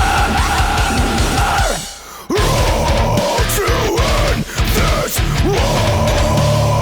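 Loud background music, which briefly drops out about two seconds in.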